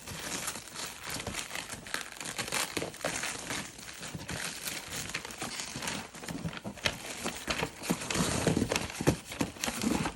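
Parcel packaging being unwrapped by hand: wrapping crinkling and crumpling continuously, with some tearing, in an uneven run of crackles that grows busier and louder near the end.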